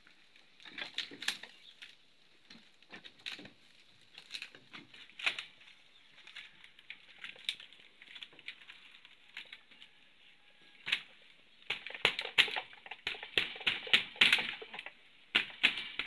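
Dry woven bamboo (amakan) wall panel crackling and rustling as it is pried and pulled off its wooden frame. The crackles are sparse at first; after a sharp crack about eleven seconds in they come as a dense run of louder cracks.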